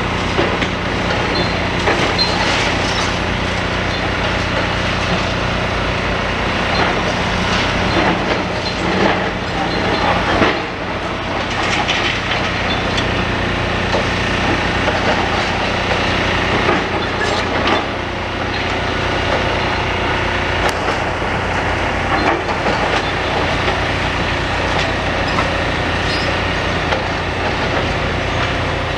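Demolition excavator with its diesel engine running steadily while the machine crunches and scrapes through building rubble, with irregular cracking, splintering and clattering of breaking material.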